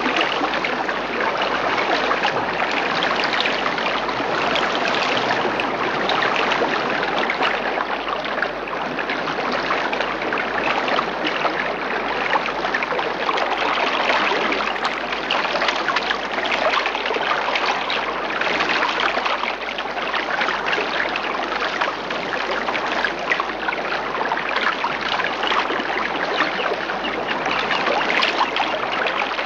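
Steady sound of flowing, babbling water, a recorded stream sound effect.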